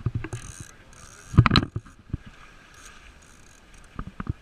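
Knocks and clatter of gear on a fishing boat, loudest in a quick cluster about a second and a half in, with a few more near the end. Short bursts of hiss come in the first second.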